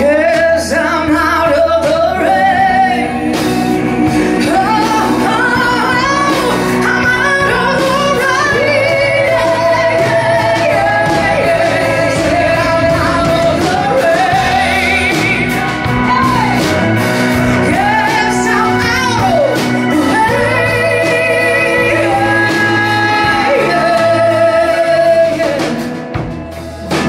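Live soul-blues band: a female lead singer belting, with two female backing singers, over electric bass, guitar, drums and keyboards. The voices slide and ornament long held notes, and the music dips briefly near the end.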